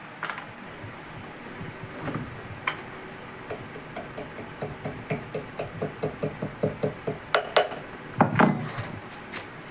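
Light quick taps, about four a second, then a few louder knocks near the end, as an oil seal is tapped into a motorcycle's front wheel hub. A cricket chirps steadily throughout.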